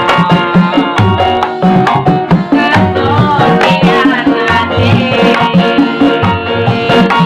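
Dangdut music with a steady hand-drum beat under melodic instrument lines.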